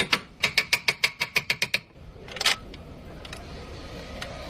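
A rapid run of sharp clicks, about seven a second, for nearly two seconds, then one louder click, then a steady hum with a faint, slowly rising tone.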